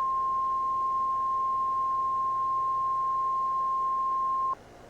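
Single steady electronic alert tone, one pitch just above 1 kHz, held for about four and a half seconds and then cutting off suddenly.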